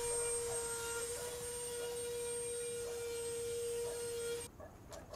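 Dremel rotary tool running at a steady high speed with a high-pitched whine, its bit drilling into the camper ceiling at the end of a crack. The whine cuts off suddenly about four and a half seconds in.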